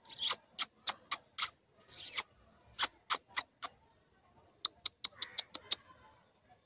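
Monkey giving short, sharp high squeaks in quick runs of three to six, with brief pauses between the runs.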